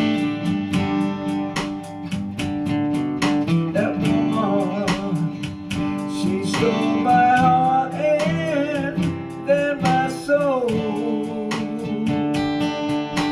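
Strummed acoustic guitar in a steady rhythm, with a wavering melody line that bends in pitch over it from about four seconds in until about eleven seconds: an instrumental break in a country-style song.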